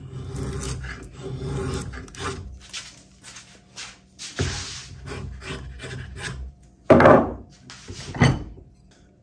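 Freshly sharpened drawknife shaving eastern red cedar: a series of scraping draw strokes peeling off shavings, ending with two short, louder strokes near the end.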